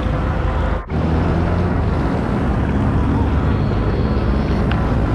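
Steady low rumble of outdoor road noise, with a short dropout about a second in.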